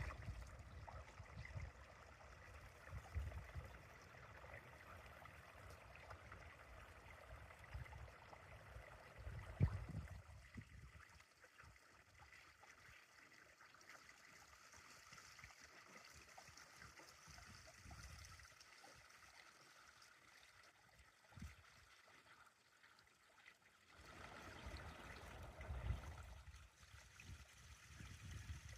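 Faint running water, a steady trickling hiss, with low rumbles of wind on the microphone through roughly the first ten seconds.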